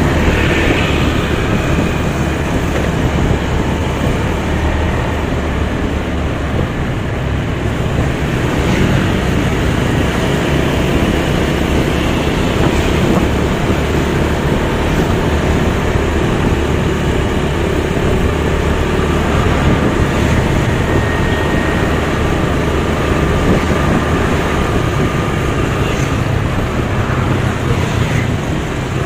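Steady road noise from a moving motorcycle: its engine running and wind rushing past, with scooters and cars in the traffic around it.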